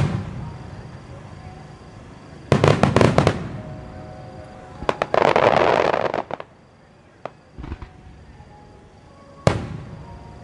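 Aerial firework shells bursting in a rapid starmine sequence: a sharp bang at the start, a quick string of reports about two and a half seconds in, a longer dense crackle around five to six seconds, and another sharp bang near the end.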